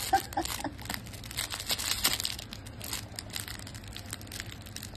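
Dense, irregular crinkling and crackling of a small plush toy as a toy poodle bites and chews on it while a hand holds it to the dog's mouth.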